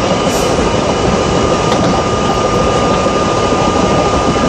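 R32 subway train running at speed, heard from inside the lead car: a steady rumble of wheels on rail with a steady high whine over it.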